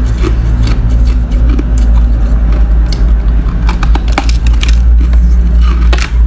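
Ice being bitten and chewed: irregular crisp crunches and crackles, several packed together about four seconds in and again near the end. A loud steady low rumble runs underneath.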